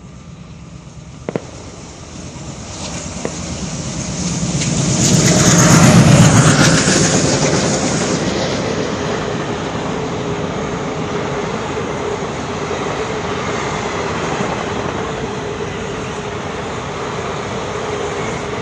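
Express passenger train hauled by an ALCO diesel locomotive approaching and passing at speed. It is loudest as the locomotive goes by about six seconds in, then the coaches keep running past over the rails with a steady rumble.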